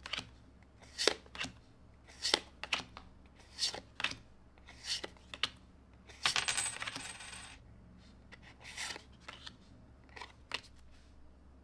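Pokémon trading cards slid one at a time off the front of a hand-held stack and tucked behind, each move a short crisp card swish or snap, about one every second. About six seconds in comes a longer rustle of about a second and a half.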